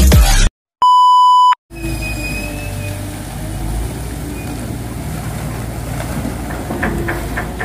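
A single loud electronic beep tone lasting under a second, followed by the steady low rumble of a grab-dredging crane barge's machinery running, with a few metallic clanks near the end.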